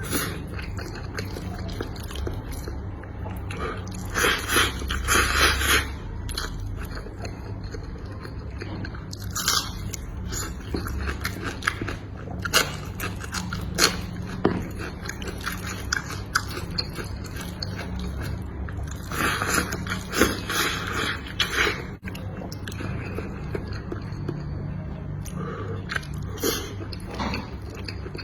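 Biting and chewing crunchy food, with scattered crunches throughout and two longer, louder bouts of crunching, one about four seconds in and another around twenty seconds in.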